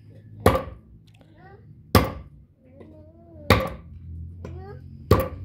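Machete chopping down through a slab of raw pork into a wooden table: four sharp chops about a second and a half apart.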